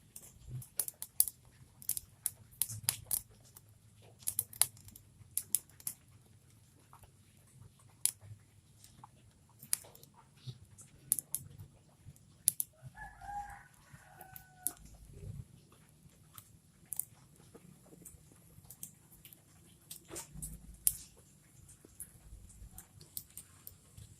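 Irregular sharp ticks and taps throughout, with a rooster crowing once about halfway.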